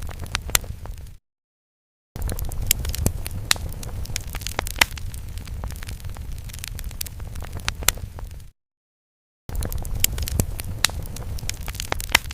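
Fire sound effect: a low roar of flames with sharp crackles and pops, broken twice by about a second of dead silence, just after a second in and about eight and a half seconds in, where the looped effect starts over.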